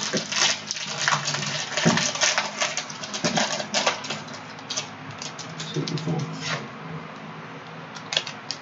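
Foil wrapper of a Panini Prizm basketball card pack crinkling and tearing open, a dense run of crackles over the first few seconds, then quieter handling of the pack and cards with a few clicks near the end.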